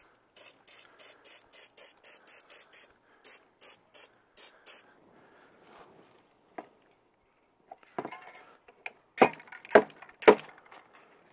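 Aerosol spray-paint can hissing in quick short bursts, about three or four a second, as the nozzle is tapped to mist paint through a stencil. Near the end come three loud, sharp knocks.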